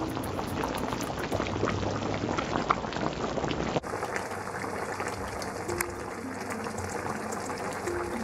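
Thick fish curry bubbling in a nonstick pan on the stove, a steady crackle of bubbles popping through the sauce.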